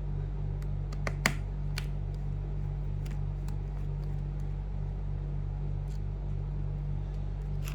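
A few small, sharp clicks of a precision screwdriver and tools working at a tiny screw in a MacBook laptop, over a steady low electrical hum.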